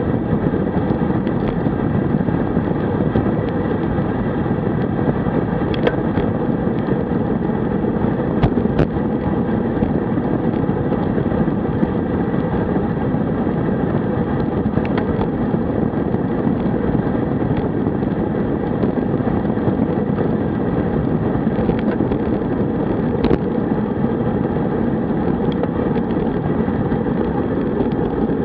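Wind rushing over a handlebar-mounted camera microphone, with tyre noise from a road bike rolling fast on asphalt at about 45 km/h: a steady rumbling roar. A few short clicks stand out, two of them close together about a third of the way in.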